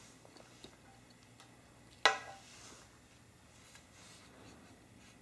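A smartphone set down on a glass tabletop: one sharp knock about two seconds in that rings briefly, with a few faint clicks before it.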